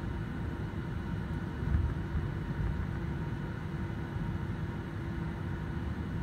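Jet airliner cabin noise while taxiing after landing: a steady low rumble of the idling engines and rolling landing gear, with one brief louder bump a little under two seconds in.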